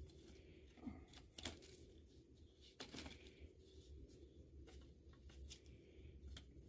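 Near silence broken by faint, scattered crackles and ticks as a small smouldering twig campfire is poked and stirred with a stick.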